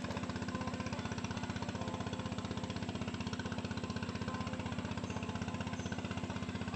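An engine running steadily at a constant speed, with a fast, even pulse.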